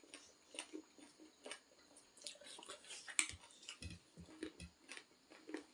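Close-up chewing and eating of spicy ramen: a run of irregular, short wet mouth clicks and smacks.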